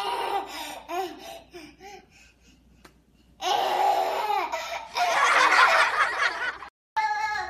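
A baby laughing in short repeated bursts, with a pause of about a second and a half. The laughter then grows louder and breathier near the end and cuts off suddenly.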